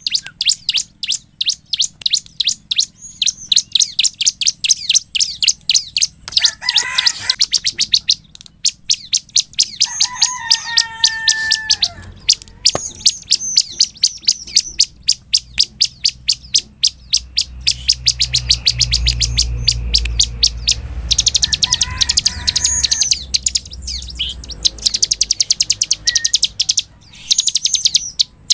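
Bar-winged prinia (ciblek) singing: long runs of rapid, sharp, high repeated notes broken by short pauses, with a few lower whistled notes partway through. A low rumble sits under the song for a few seconds past the middle.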